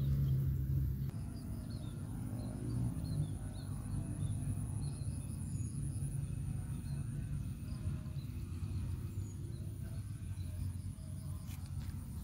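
Rice-field ambience: a steady high insect buzz and scattered small bird chirps over a low rumble, with a couple of sharp clicks near the end.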